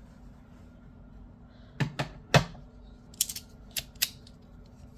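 Fidget toys being handled: a series of sharp, irregular clicks and light knocks, starting a little under two seconds in, with the loudest two close together and lighter, quicker clicks after.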